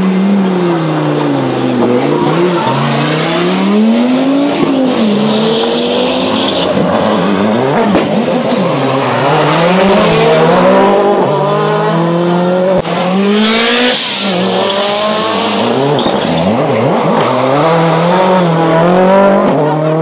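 Rally car engine revving hard and dropping back again and again as the car is driven sideways past, the revs rising and falling several times. Two short bursts of tyre noise come about five seconds and thirteen seconds in.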